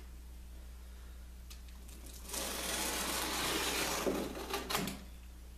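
Utility knife drawn along a straightedge, slicing through a self-adhesive carpet tile: one steady scraping stroke of about two seconds, starting a little over two seconds in, followed by a few light clicks.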